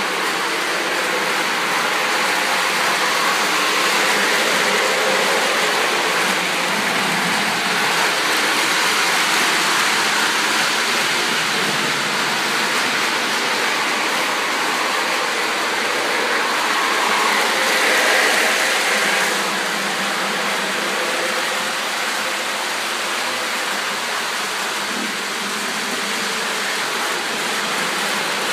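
O-scale Lionel model train running along its track: a steady, even whirring noise without breaks, a little louder about two-thirds of the way through.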